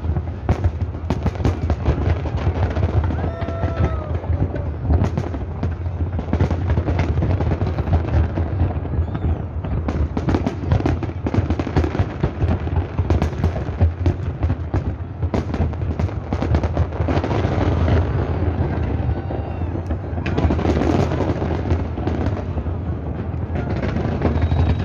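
Large aerial fireworks display: a dense, continuous barrage of shell bursts and rapid bangs over a steady low rumble.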